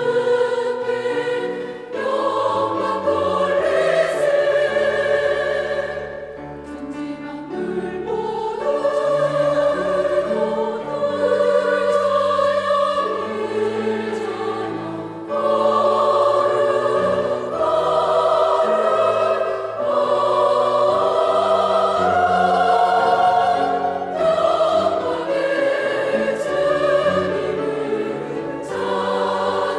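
Church choir singing a sacred anthem in held, multi-voiced phrases. It eases to a softer passage about six seconds in and swells back up at about fifteen seconds.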